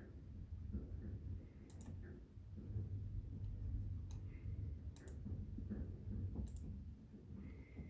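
Computer mouse button clicks, some as quick double-clicks, four bursts spread a second or more apart, over a low rumble.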